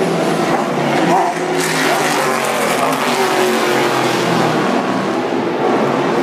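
Race car engines passing at speed on the track: a loud, continuous din of engines, with pitches rising and falling as cars go by.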